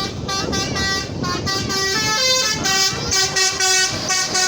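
Tour bus 'telolet' multi-tone air horn playing a quick tune of stepped notes, over low engine and road noise.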